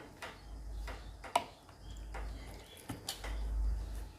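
A knife prying at the plastic case of a JBL Go speaker: about four sharp clicks and snaps of plastic over a low rumble of handling noise.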